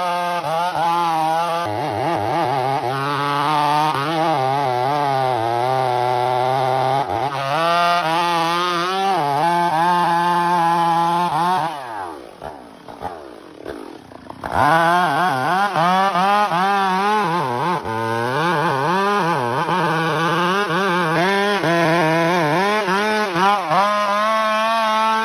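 Two-stroke chainsaw running at high revs while cutting albasia (sengon) timber, its pitch wavering up and down with the load. About twelve seconds in it falls back to a low idle for a couple of seconds, then revs up again and carries on cutting.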